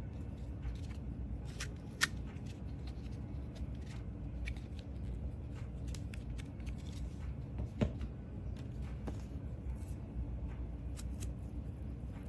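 Scattered light clicks and rustles of objects being handled, over a steady low hum, with two sharper knocks, about two seconds and about eight seconds in.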